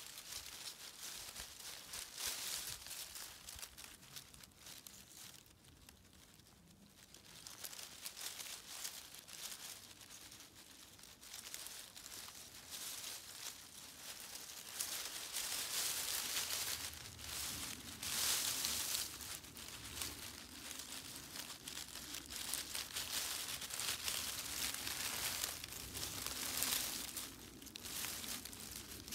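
Dry fallen leaves crinkling and rustling as a fox kit stirs and pushes its way up from underneath them, in irregular crackles. It is quieter for a few seconds near the start and gets busier from about halfway through.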